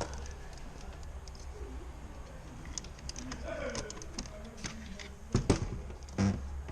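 Light clicks and taps from hands working on a car door trim panel, with two louder knocks near the end, over a steady low hum.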